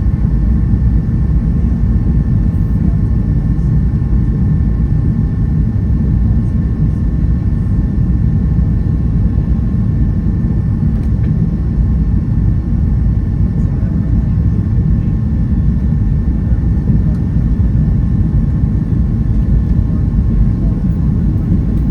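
Steady cabin noise inside a Boeing 757-200 on approach: a deep, even rumble of airflow and engines with two faint steady whining tones over it.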